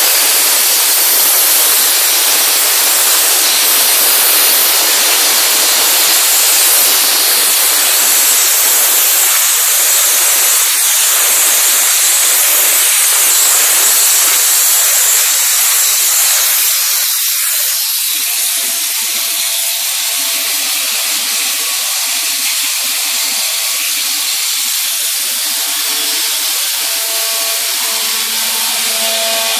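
Abrasive waterjet cutting machine's high-pressure jet cutting through a rubber tyre: a loud steady hiss with water churning in the catch tank. About two-thirds of the way through the low rumble drops away, leaving the hiss, and faint steady tones come in near the end.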